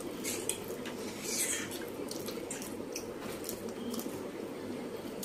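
Forks scraping and clicking against plates while noodles are eaten quickly, with scattered light clinks over a steady background hum.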